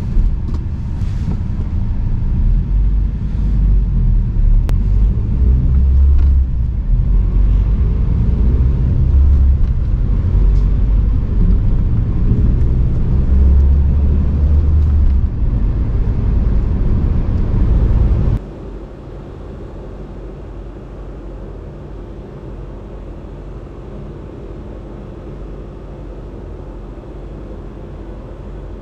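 Engine and road noise inside the cab of a Mazda pickup truck while driving, a loud steady low rumble. About eighteen seconds in it cuts off abruptly, leaving a much quieter steady hum.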